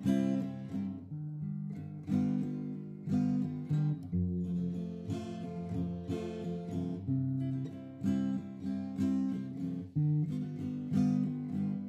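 Background music on acoustic guitar: plucked and strummed chords, a new chord struck about once a second and left to ring.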